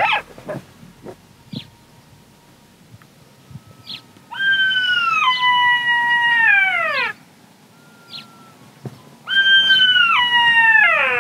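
Black-backed jackal howling: after a short yelp at the start, two long wailing calls, each held high, stepping down and then sliding away in pitch. Between them come faint answering calls from another jackal in the distance, the two communicating.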